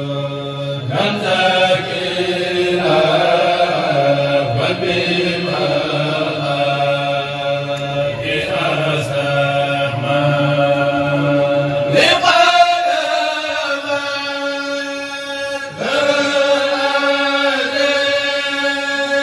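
Men's voices chanting Mouride khassida, Arabic Sufi religious poetry, in long held melodic phrases, amplified through microphones. The phrases change about a second in, again about twelve seconds in, and again about sixteen seconds in.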